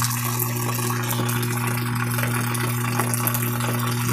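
Water pouring from the inlet into the drum of a top-loading washing machine as it fills near the end of its fill, a steady rushing with a constant low hum underneath.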